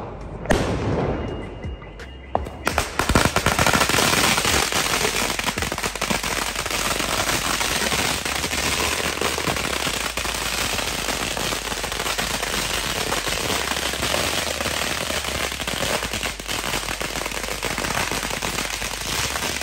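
A string of about 2,000 firecrackers (a ladi) going off: a few separate bangs at first, then from about three seconds in a dense, unbroken rattle of rapid bangs like machine-gun fire.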